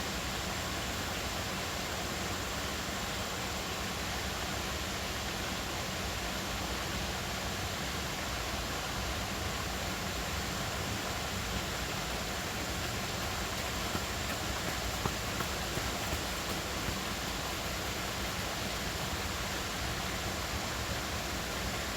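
River water flowing: a steady, even rush of water, with a few brief, slightly louder splashes about two-thirds of the way through.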